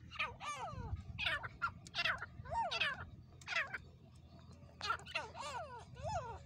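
Francolins (teetar) calling: a rapid run of loud, ringing calls, each sliding down in pitch, coming about every half second with a short lull midway.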